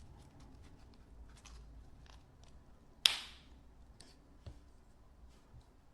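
Quiet handling of a metal folding multitool, with small clicks of its parts being folded and moved, and one sharp metallic snap about three seconds in as a blade or arm snaps into place.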